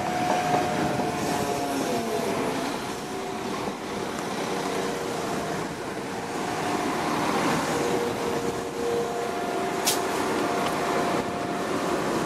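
Class 172 Turbostar diesel multiple unit running along the platform, giving a steady whine whose tones shift in pitch over the rumble of the train. One sharp click comes about ten seconds in.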